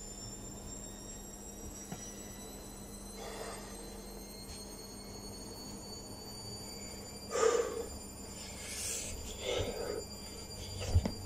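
A person breathing hard during a burpee workout, with a few short, heavy breaths, then a dull thump on the carpeted floor near the end as he drops down into the push-up position.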